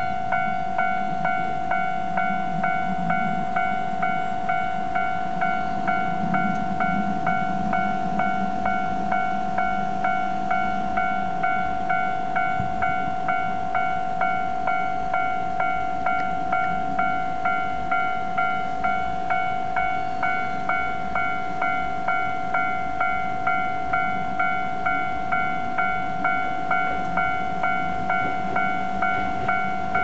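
Japanese railway level-crossing alarm ringing with even, repeating electronic bell strikes, about two a second, sounding while the warning lights flash and the barriers are down for an approaching train.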